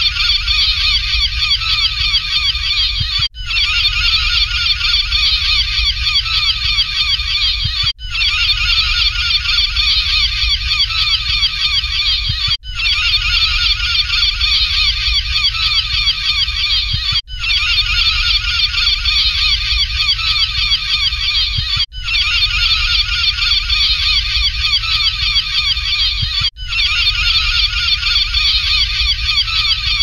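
A dense flock of gulls calling continuously, many overlapping cries at once, over a low steady rumble. The chorus dips briefly about every four and a half seconds.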